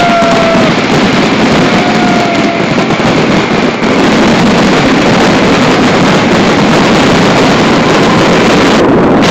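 Large fireworks display: dense, continuous crackling and bursts so loud and close that they blur into one steady wall of noise on the phone microphone. Two short whistling tones come through in the first couple of seconds.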